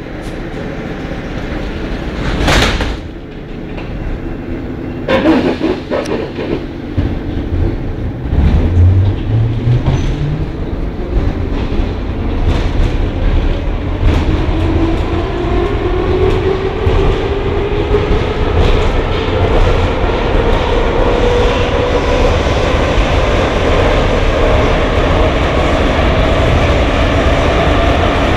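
Soviet-built 81-717-type metro car departing: two short loud noises in the first few seconds as the doors shut, then the train pulls away, a low motor hum rising in steps and then a traction-motor whine climbing steadily in pitch as it accelerates, over the rumble and clatter of the wheels on the track.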